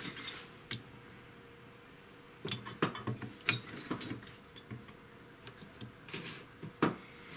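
Multimeter test probes clicking and scraping against component leads and solder joints on a TV power-supply board while a diode is checked in circuit. There are several sharp little clicks, bunched through the middle, and one more near the end.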